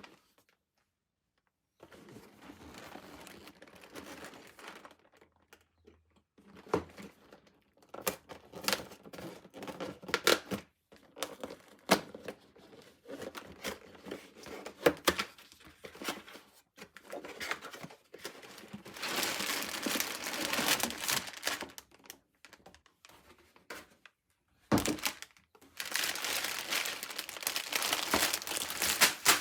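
Plastic packaging crinkling and tearing, with scattered sharp clicks and knocks, as the LEGO Technic set's box and parts bags are opened; the crinkling comes in two long stretches past the middle.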